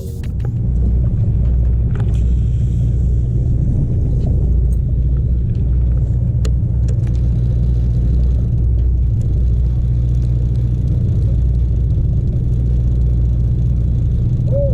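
Sportfishing boat's engine running steadily underway, a constant low rumble and hum.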